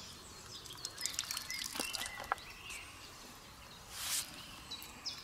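Small birds singing, with repeated short high chirps throughout. A few light clicks of handling come in the first half. About four seconds in there is a short slurp as water is drunk straight from a Sawyer squeeze filter.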